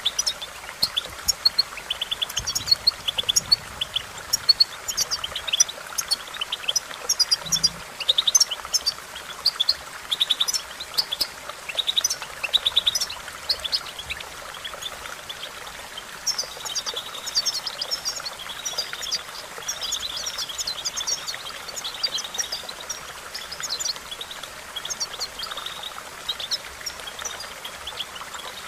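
European goldfinch singing: a rapid run of short, high twittering chirps and trills, becoming denser and more continuous through the second half.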